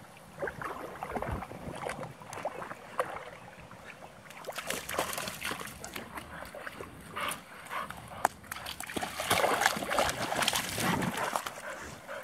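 Irregular splashing and footsteps as a puppy walks over wet sand into shallow water, in uneven bursts with a few sharp clicks.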